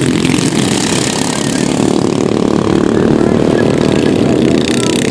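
Small petrol engines of several racing ride-on lawn mowers running together around a track, a steady, continuous engine drone.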